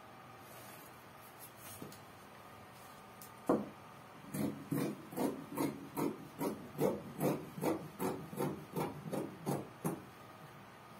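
A single knock, then about fifteen quick rubbing strokes, two or three a second, of a tool worked over fabric laid on a table, as a dress pattern is drafted and cut.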